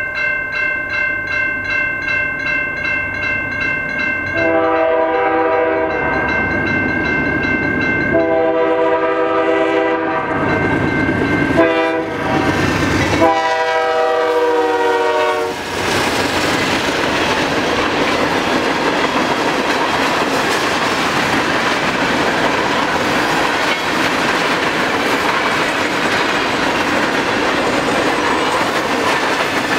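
A grade-crossing bell rings, then a GE C44-9W locomotive's air horn sounds the crossing signal: two long blasts, a short one, and a long one. The lead locomotives then pass at the crossing, followed by a string of empty coal hoppers rumbling and clattering over the rail joints.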